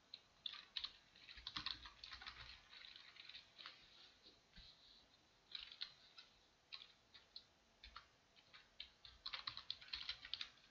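Faint typing on a computer keyboard: irregular bursts of keystrokes with short pauses between them, densest near the start and again near the end.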